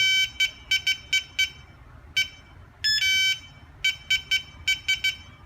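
Electronic keypad locker lock beeping as its buttons are pressed: a quick run of short beeps, one each key press, a longer beep pattern about three seconds in, then another run of short key beeps.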